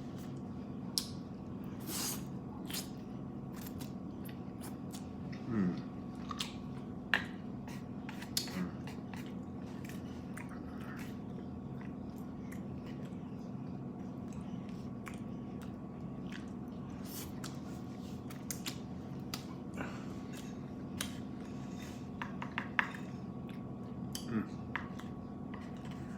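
Close-up chewing and mouth sounds of a person eating lo mein noodles, with scattered wet clicks and smacks, over the steady hum of an electric fan.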